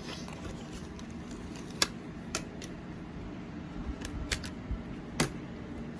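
Scattered sharp clicks and snaps of a toy's plastic packaging being handled and worked loose, about five in all, over a steady low hum.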